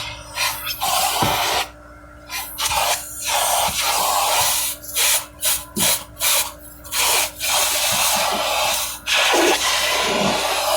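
Vacuum cleaner cleaning a car interior: a steady motor hum under a loud rushing suction noise that cuts out and comes back many times in quick succession, then runs on unbroken near the end.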